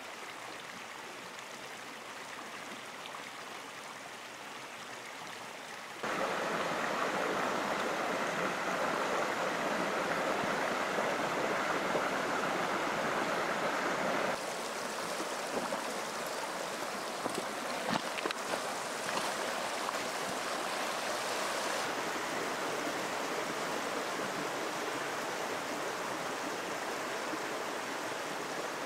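Water of a small woodland stream running over rocks, a steady rushing noise that gets louder about six seconds in and drops back a little about eight seconds later. A few light clicks come near the middle.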